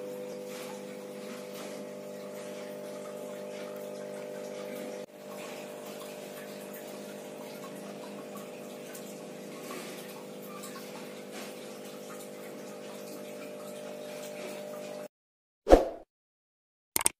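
Aquarium pump and filter running: a steady hum with water bubbling and splashing. It cuts off about fifteen seconds in, followed by one brief loud sound and a click near the end.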